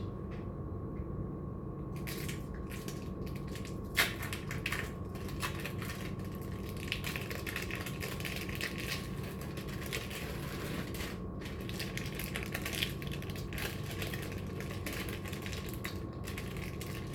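Crinkling, crackling handling noises with scattered small clicks as food is prepared by hand, with one sharp click about four seconds in, over a steady low hum.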